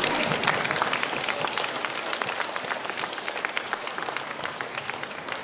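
Crowd of spectators applauding, many hands clapping densely, slowly dying down.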